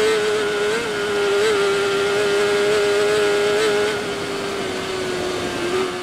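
Racing superbike's inline-four engine running flat out at high revs from an onboard camera, holding a steady high note with a few brief wavers, easing slightly about four seconds in.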